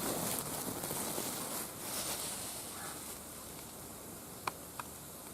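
Wood fire burning in a barbecue grill: a steady hiss with two sharp crackles near the end.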